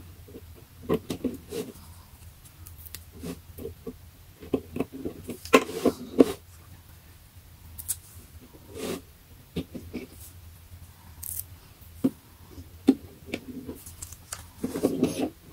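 Clear plastic IKEA GODMORGON boxes being handled: scattered clicks, taps and light rustles as tape is picked off and the boxes are moved, with a denser cluster of clatter about five to six seconds in and again near the end.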